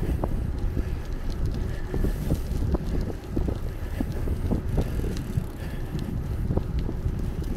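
Bicycle rolling along an asphalt street: wind buffeting the handlebar-mounted microphone over a steady tyre rumble, with many small clicks and rattles from the bike.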